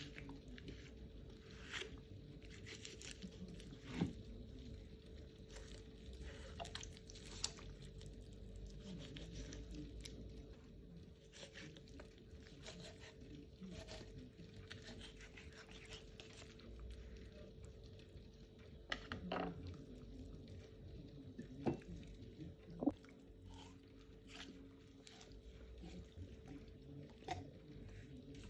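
Faint kitchen handling sounds: scattered knocks, clicks, scrapes and squishes of food and utensils being handled, with a few sharper knocks in the second half. A steady low hum runs underneath.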